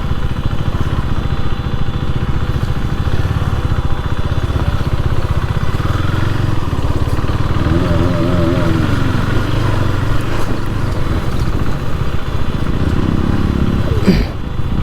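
Motorcycle engine running steadily while the bike is ridden over rough off-road ground, with continuous wind and ride noise. A faint voice comes in briefly around the middle.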